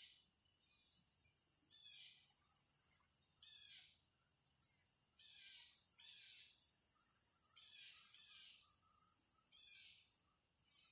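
Faint field ambience: a bird giving short calls every second or two, over a steady high-pitched drone of insects.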